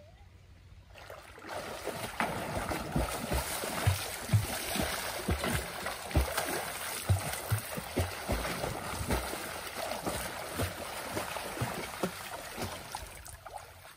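Water splashing and sloshing, with a string of irregular low thumps through it. It builds up about a second and a half in and fades away near the end.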